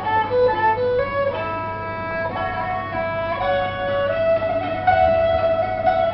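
String-instrument music, likely from the Cambodian collection being presented: a melody of held notes stepping up and down, with plucked and bowed strings.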